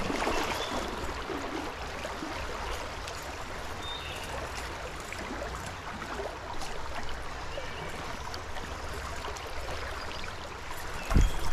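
Steady rush of a fast, rippled stream flowing past close by, with a few strong low thumps near the end.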